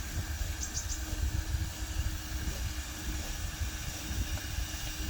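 Small 12-volt electric motor of a handmade RC dump truck running with a steady hum, over a low rumble.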